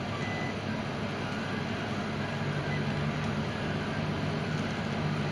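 Delta 3D printer printing: its stepper motors hum in a few steady low tones that shift in pitch as the moves change, over a steady whir.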